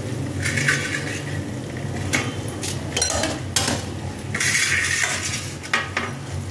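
Steel cookware and a metal spoon clinking and scraping on the stovetop in several short bouts, over a steady low hum.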